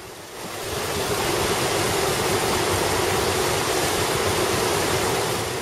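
Water rushing over a river diversion weir: a steady rush that swells up about half a second in and fades out near the end.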